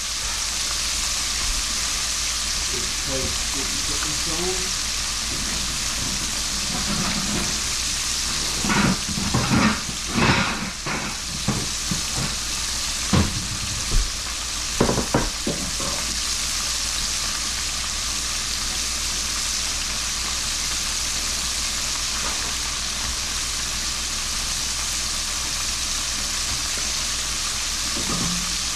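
Frog legs deep-frying in grease at about 350 degrees: a steady sizzle of bubbling oil. Between about 8 and 16 seconds in, a handful of short knocks or clinks sound over the sizzle.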